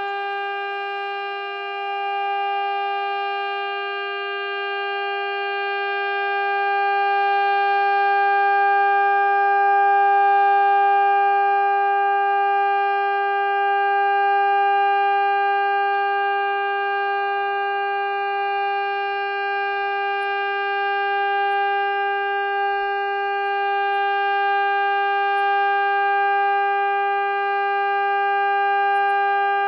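Warning siren sounding one steady tone that does not rise or fall in pitch, its loudness slowly swelling and easing.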